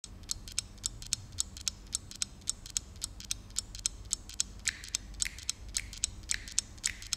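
Stopwatch app on a phone ticking evenly, about four ticks a second.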